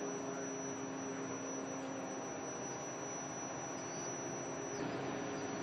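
Steady hum of a heavy transporter vehicle's engine running, with a constant high-pitched whine over it and a slight step up in level near the end.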